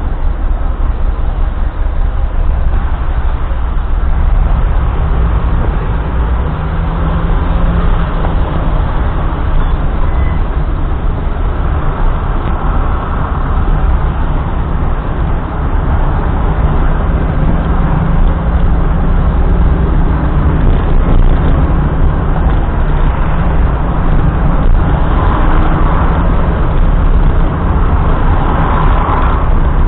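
Steady road noise of a car being driven: engine and tyre rumble, heaviest in the low end, holding much the same throughout.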